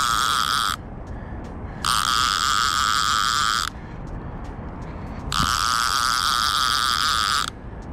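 Conventional fishing reel's clicker buzzing in three bursts of one to two seconds as a hooked catfish works the line.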